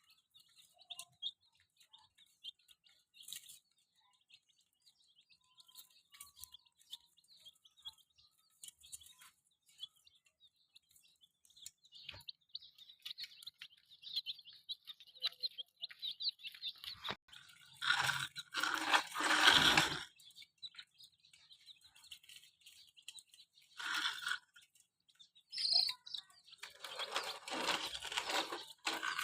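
Baby chicks peeping: many short, high chirps, with two louder stretches of noise, one a little past the middle and one near the end.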